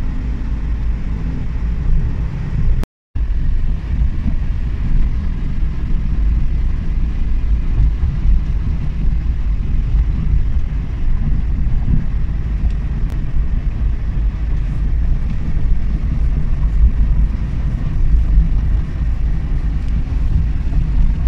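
In-cabin driving noise of a Suzuki Every Wagon DA17W with its R06A turbo engine: a steady low rumble of engine and tyres on the road at cruising speed. The sound cuts out completely for a split second about three seconds in.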